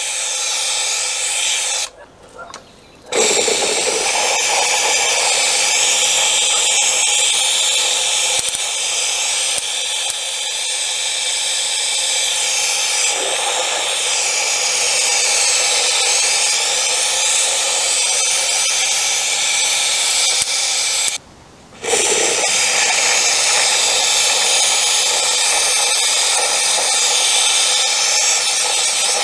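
Powder coating gun spraying: a steady hiss of air and powder, cut off briefly twice, about two seconds in and again about twenty-one seconds in.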